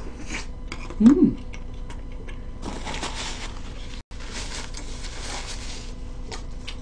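A person chewing a soft mouthful of pancake with small mouth clicks, giving a short hummed "mm" about a second in, loudest of all, then two stretches of soft rustling.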